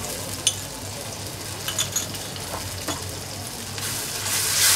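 Oil sizzling in a steel kadhai as Kashmiri chilli paste, garlic, ginger and green chillies fry in it. A few sharp clinks of a spoon on the pan come through, and the sizzle grows louder near the end as the paste is stirred into the hot oil.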